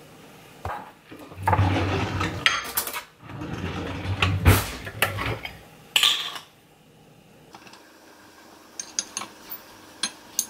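Kitchen handling noises: a few seconds of rustling and knocking as bread and a paper plate are handled, then a run of light clinks from a knife working inside a glass jelly jar near the end.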